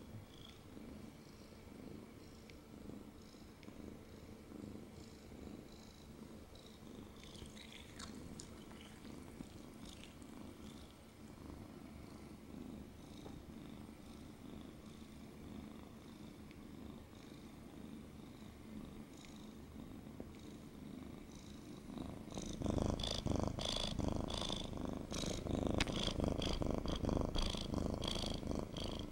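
Ginger-and-white domestic cat purring steadily while being held in someone's arms. The purr becomes much louder and closer about 22 seconds in.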